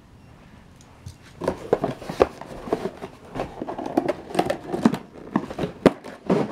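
Cardboard box and plastic packaging being handled: irregular rustling, crinkling and small knocks as an RC controller is taken out of its box, starting about a second and a half in.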